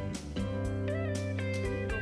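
Background music: electric guitar playing notes that bend in pitch over a steady drum beat.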